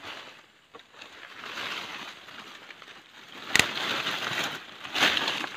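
Leaves and twigs of a jengkol tree rustling and swishing as a leafy branch is pulled in by hand, with one sharp click a little past halfway.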